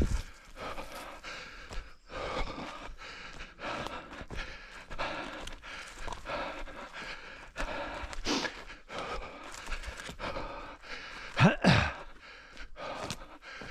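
An orienteering runner breathing hard in a steady rhythm while running, each breath a short rush. About eleven and a half seconds in comes one louder gasp with voice in it, sliding down in pitch.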